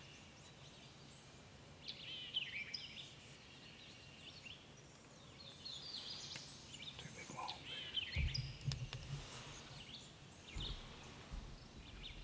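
Small songbirds chirping and singing over quiet outdoor background noise, with a short low rumble about eight seconds in.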